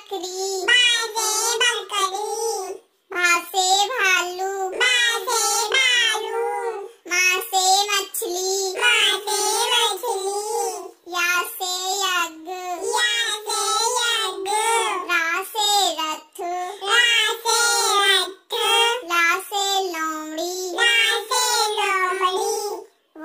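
A child's voice singing a Hindi alphabet rhyme, unaccompanied, in short phrases with brief pauses between them, one letter and its word at a time.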